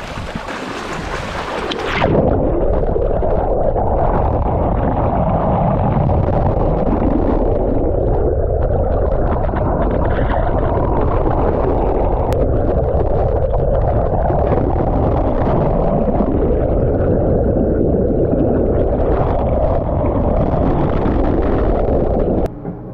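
Water rushing past a camera held underwater beside a moving sailboat's hull: a loud, steady, muffled churning with the high sounds cut off. About two seconds in, the open-air hiss and splash of the wake gives way to this as the camera goes under, and it surfaces again just before the end.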